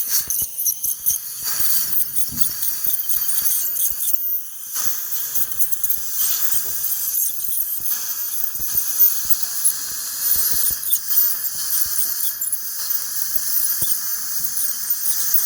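Dental scaling in progress: a steady high-pitched hiss and whine from the scaler and suction working in the patient's mouth, with many scattered small clicks.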